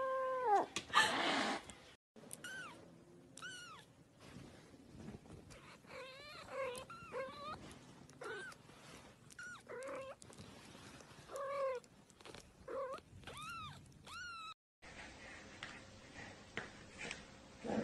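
A cat making many short, high-pitched meows in quick succession, each call rising and falling. Before them, near the start, a kitten's drawn-out yowl falls away.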